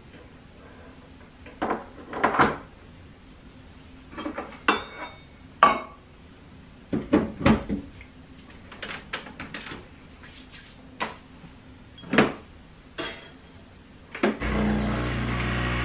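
Metal clinks and knocks of a portafilter and a steel milk jug being handled and locked into a Breville espresso machine. Near the end the machine's pump starts with a steady hum as an espresso shot begins brewing.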